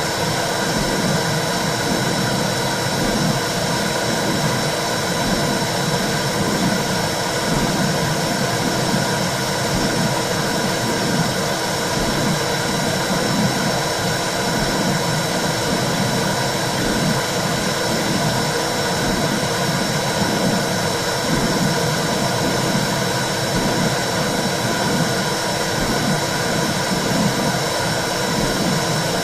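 Womb sound played to soothe a baby: a constant whooshing noise with a low, regular pulsing through it and a faint steady high tone.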